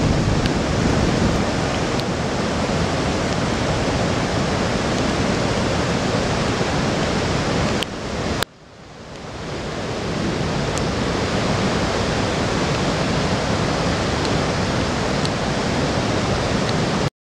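Rushing floodwater of a river in spate: a steady, loud, even noise of fast water over rapids and through flooded trees. It cuts off sharply about eight and a half seconds in, fades back up over a second or two, and stops abruptly near the end.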